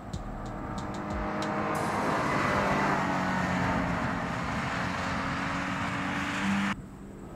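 2022 Toyota GR86 with its 2.4-litre flat-four engine driving past on a race track: a steady engine note with tyre and wind noise that builds as the car passes, then cuts off abruptly near the end.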